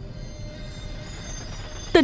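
Soft background film music, quiet and steady, with a low hum beneath it. A woman's voice begins right at the end.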